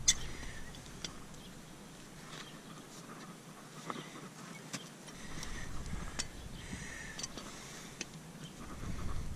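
Steel hoof testers squeezing a mule's hoof to find an abscess: about eight faint, sharp metal clicks and taps, scattered irregularly over a quiet background.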